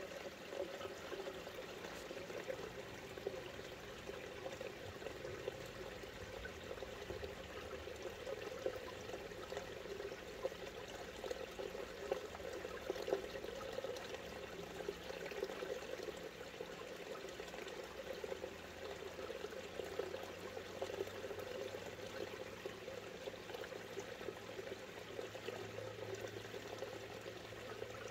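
Creek water rushing, a steady unbroken watery noise.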